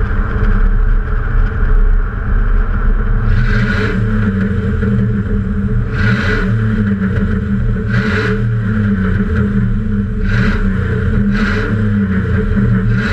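Ford F-150's 302 (5.0 L) V8 exhaust running steadily as the truck cruises, through a Magnaflow Y-pipe with a QTP exhaust cutout. Several short hisses break in every couple of seconds.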